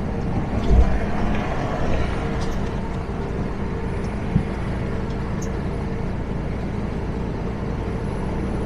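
Semi-truck cruising at highway speed, heard inside the cab: a steady engine drone and road noise, with a couple of brief thumps, one about a second in and another around four seconds in.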